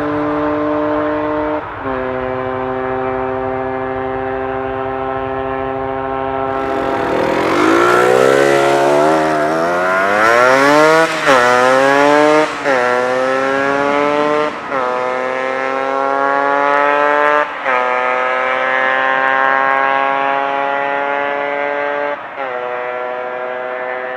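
Yamaha DT125 two-stroke single with an Athena end silencer on a burnt-out stock header, running steadily, then accelerating hard through the gears. The pitch climbs and drops suddenly at each upshift, about five times.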